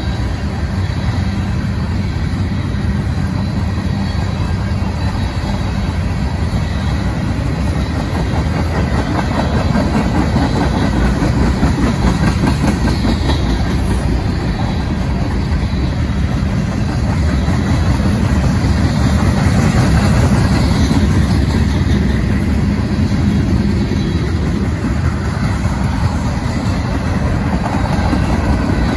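Freight train rolling past: a steady rumble of railcar wheels on the rails.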